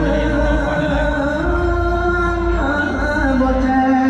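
Mor lam singing: a voice holding long notes that step from pitch to pitch, over steady low musical accompaniment.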